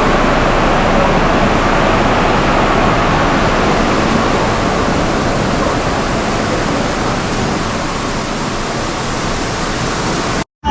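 Waterfall rushing: a steady, loud wash of falling water that eases slightly toward the end and cuts off abruptly.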